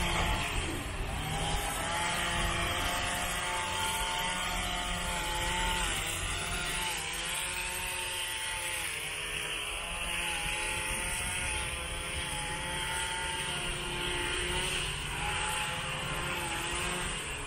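An engine running steadily, with a hum that wavers slightly in pitch over a low rumble.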